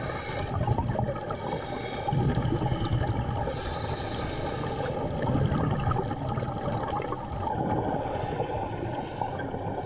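Underwater sound on a dive: a diver's exhaled air bubbling and gurgling, swelling about every three seconds, over a steady low hum.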